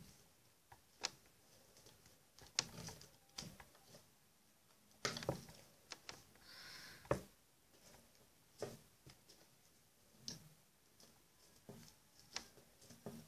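Quiet handling sounds of hands braiding a doll's hair and wrapping it with thread: scattered soft clicks and taps, with a brief rustle about seven seconds in.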